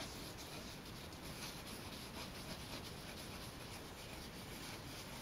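Faint, steady scratching and rubbing of a colouring tool worked in small strokes over wet watercolour paper.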